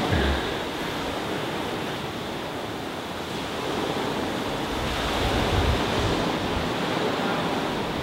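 Steady rushing of sea surf and wind, with a few dull low thumps.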